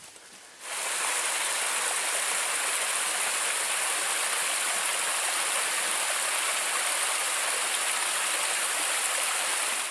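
Small forest stream pouring over a low rock ledge in a little waterfall: a steady rush of falling water that starts suddenly under a second in.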